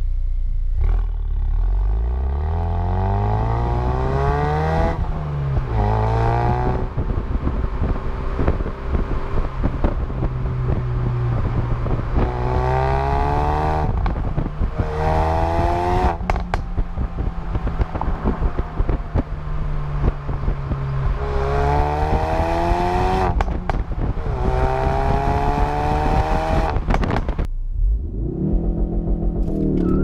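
2017 Ford Focus RS's turbocharged 2.3-litre EcoBoost four-cylinder exhaust, heard at the rear bumper, accelerating hard through the gears in four runs: each run is two rising sweeps broken by upshifts, with steady cruising between runs and short sharp cracks around some gear changes. Near the end the same engine is heard from inside the cabin, revving up again.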